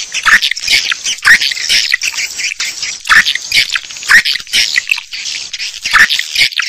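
Swiftlet lure recording: a dense, unbroken chorus of many swiftlets' high chirps and twitters, the call track played from speakers to draw swiftlets to nest in a swiftlet house.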